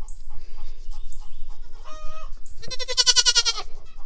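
Nigerian Dwarf goat kid bleating: a short call about two seconds in, then a longer, louder, quavering bleat.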